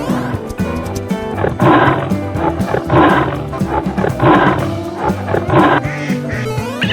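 Four big-cat roars in a row, a lion or tiger sound effect, over cartoon background music.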